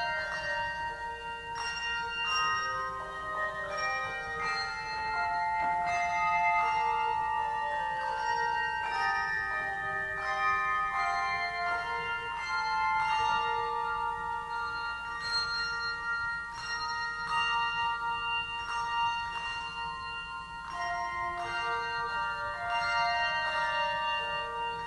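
Instrumental music: a slow run of struck, bell-like notes that ring on and overlap one another.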